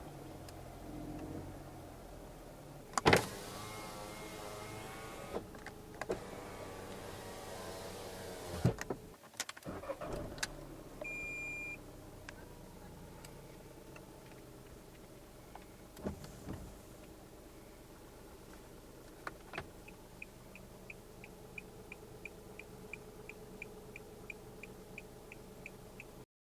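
A run of Fiat Argo car sounds: a sharp knock about three seconds in, then an electric window motor whirring for about five seconds and ending in another knock, a short electronic beep near eleven seconds, and from about twenty seconds the turn-signal indicator ticking steadily a few times a second until it cuts off.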